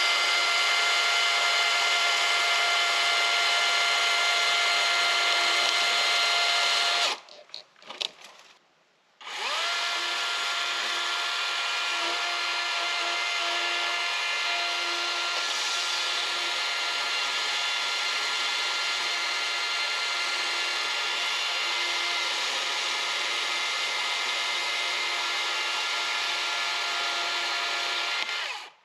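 DeWalt 60-volt battery chainsaw with a 20-inch bar cutting wood, running at a steady high pitch for about seven seconds. It stops briefly, spins back up and runs steadily again for about twenty seconds, then cuts off near the end.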